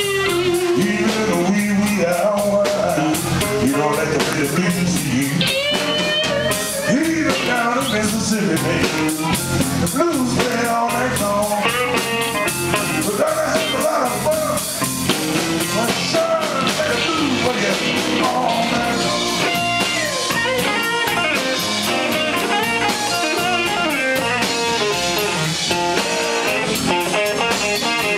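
Live blues band playing: amplified harmonica cupped to a microphone, over electric bass, drums and electric guitars.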